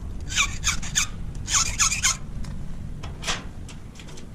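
Hand file scraping across a key blank in short strokes, a quick run of about four strokes, a second run of about four, and one more stroke about three seconds in: cuts being filed down during key impressioning.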